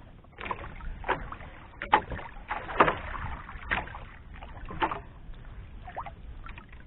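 Water slapping and sloshing against the hull of a small outrigger boat in irregular splashes, about one a second, over a steady low rumble.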